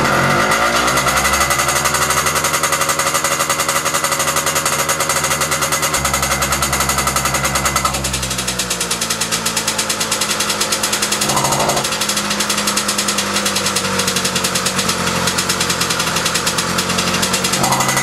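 Puch Maxi moped's 70 cc two-stroke single-cylinder engine running loud through a cheap straight chrome 'cigar' exhaust just after starting, its revs dropping and settling in the first few seconds and picking up again near the end. Partway through, the tone changes as the tailpipe is held shut and the exhaust leaks out at the badly sealed joint between header and silencer.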